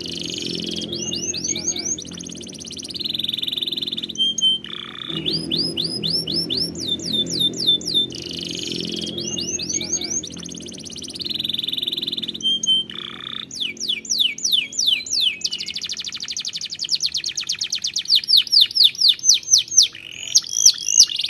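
Domestic canary singing: a continuous song of fast repeated phrases, each a run of quick falling notes or a rapid roll, one after another. Near the end it goes into a long, fast series of repeated notes.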